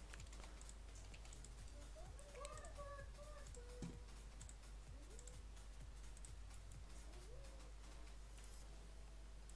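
Faint, scattered clicks of a computer mouse and keyboard during 3D modelling work, over a low steady hum.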